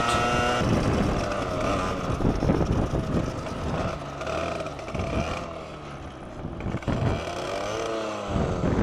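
Supermoto's engine running under way, with heavy wind buffeting on the bike-mounted microphone. The engine pitch rises and falls, then drops near the end as the bike slows.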